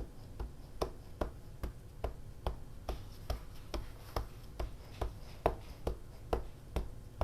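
Light, very regular tapping, about two and a half taps a second, each a sharp click with a dull thud.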